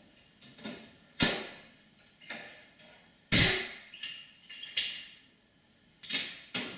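Irregular clanks and knocks of tools and metal parts being handled against a metal computer case, about ten in all, the two loudest about a second in and a little past three seconds.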